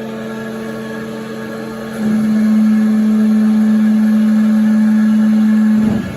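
Door cold press machine running with a steady motor hum. The hum grows louder about two seconds in, holds, and drops back near the end.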